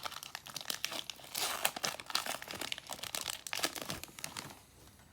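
A foil Pokémon booster pack being torn open and crinkled by hand, with irregular crackling and tearing that is densest in the first half and thins out near the end.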